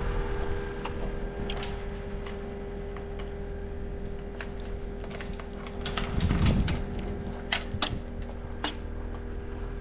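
Scattered small clicks and key rattles from handling keys and latches, over a faint steady hum, with a dull low bump about six seconds in and a few sharper clicks near the end.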